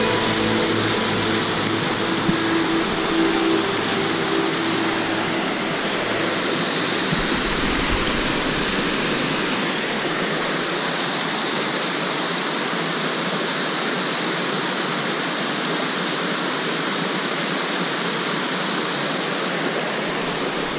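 Small rocky stream rushing over boulders, a steady unbroken rush of water.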